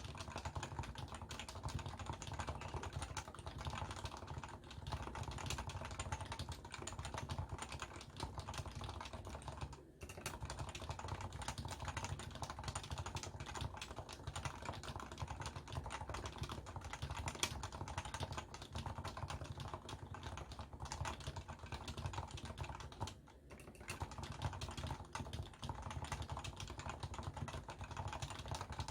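Continuous dense typing on a Leopold FC660C keyboard with stock, non-silenced Topre 45 g electrostatic capacitive switches, recorded through a Samsung Galaxy S10+ phone microphone. The keystrokes pause briefly twice, about ten seconds in and again about twenty-three seconds in.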